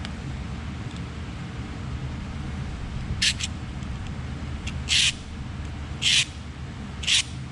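Four short scratching strokes of marking on metal, each a fraction of a second, spread over the second half, over a steady low hum.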